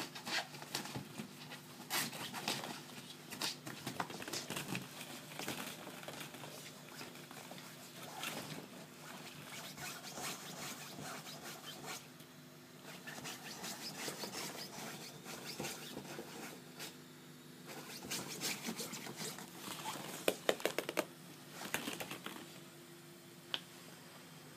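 Hollow plastic ball-pit balls clicking and rustling irregularly as a Shetland sheepdog puppy roots and scrambles among them, with a busier flurry of clatter about three quarters of the way through.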